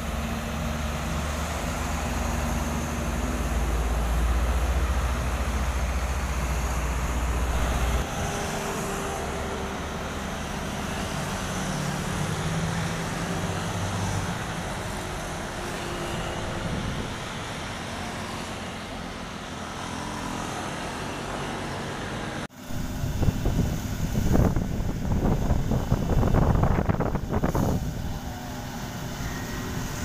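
Diesel engines of road-construction trucks and paving machines running. A deep, steady engine rumble fills the first several seconds, while a truck drives past. After that comes steadier mixed engine and traffic noise, and then a sudden change to louder, uneven rumbling for the last few seconds.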